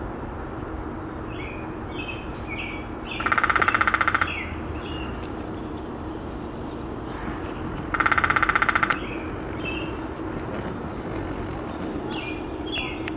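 Downy woodpecker drumming: two rapid, even rolls of about a second each, one about three seconds in and one about eight seconds in, with other small birds chirping.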